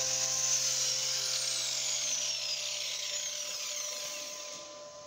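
Angle grinder's disc spinning down after being switched off from grinding: a high whine that falls slowly in pitch and fades away over about four seconds.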